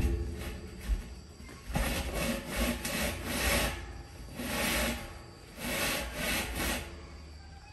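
A series of scraping, rubbing strokes, each about half a second to a second long, with a short knock about a second in.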